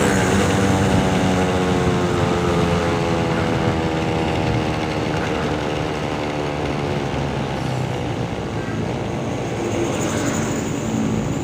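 Yamaha RX King's two-stroke single-cylinder engine running while the bike is ridden, its pitch falling steadily over the first several seconds as the revs drop, over a steady rushing road noise.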